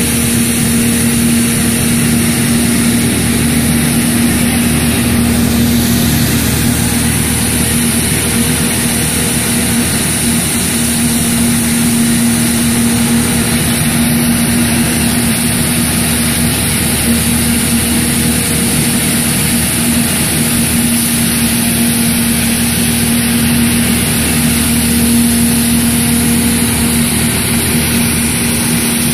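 Rotexmaster tub-hopper crusher running steadily while it grinds straw: a constant hum under a loud, even hiss.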